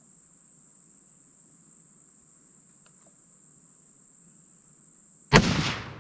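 A single Ruger .270 rifle shot fired near the end, sudden and loud with a short decaying echo, while crickets chirp steadily throughout.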